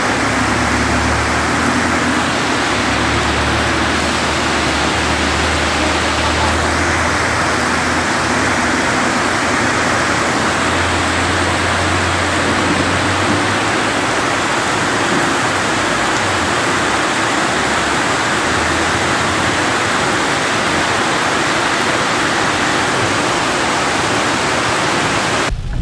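Heavy rain and water running over a flooded street make a steady, loud hiss. A low rumble sits underneath, strongest in the first half, from vehicles driving through the floodwater.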